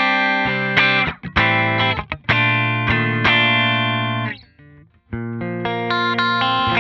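Clean electric guitar chords played through a Line 6 Helix modeller, with a 3-band compressor block in front of the amp at its default settings, giving only slight compression. The chords ring and die away; they break off about four and a half seconds in and resume within a second.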